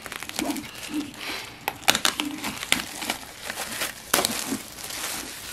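Plastic shrink wrap crinkling and crackling in irregular bursts as it is peeled off a cardboard punchboard of game tokens.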